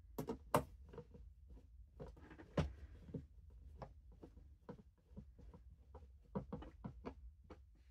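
Small screwdriver turning a screw into the plastic battery-compartment cover of a toy kitchen: faint, irregular clicks and light scrapes of the bit and plastic.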